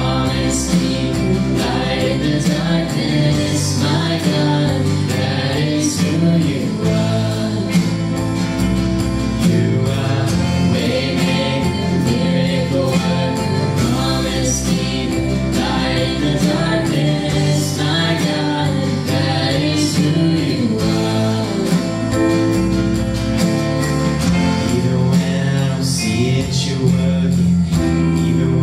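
Worship band playing a Christian gospel song, with singing over the instruments and a steady beat.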